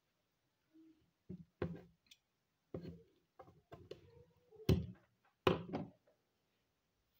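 A run of irregular light knocks and taps, about nine over five seconds, the loudest two near the end.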